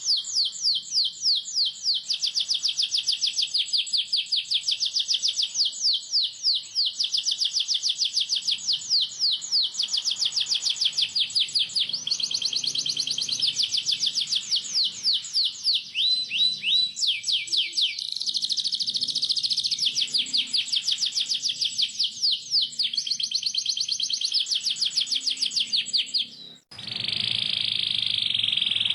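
Domestic canary singing: a long fast run of repeated high, downward-sweeping chirps, several a second, breaking off near the end into a dense rolling trill.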